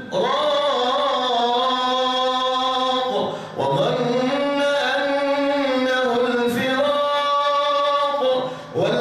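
A solo male voice chanting Quran recitation, drawing out long melodic notes, with a short pause for breath about three and a half seconds in and another near the end.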